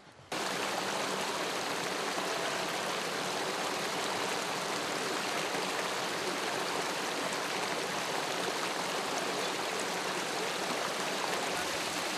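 A small rocky stream rushing and splashing over a cascade of stones, a steady loud rush of water that cuts in abruptly just after the start.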